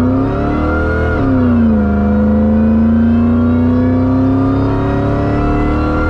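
2001 Ford F-150 SVT Lightning's supercharged 5.4-litre V8 at full throttle on a timed eighth-mile run, heard from inside the cab. The engine pitch climbs, drops at an upshift about a second in, then climbs steadily again in the next gear.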